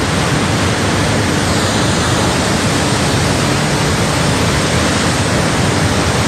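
Loud, steady rush of a muddy flood torrent pouring down a hillside.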